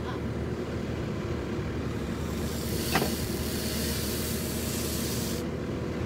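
Tractor engine running steadily, powering a hydraulic post driver. For about three seconds, from around two seconds in, a hiss of hydraulics sounds as the valve lever is worked to lift the post driver, then cuts off sharply, with a single sharp knock about three seconds in.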